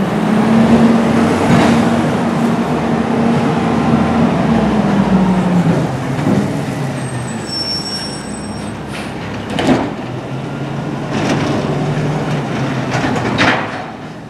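Side-loader garbage truck's diesel engine running steadily as it moves off, then settling to a lower idle at the next stop. Two short sharp knocks or hisses come about ten seconds in and again near the end.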